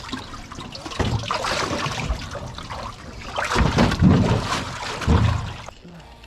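Water splashing and trickling, with heavier sloshes about three and a half seconds in and again around five seconds. It cuts off abruptly near the end.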